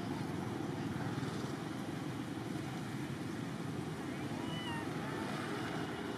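A few faint, short squeaky calls from a young long-tailed macaque about four seconds in, over a steady background rumble and hiss.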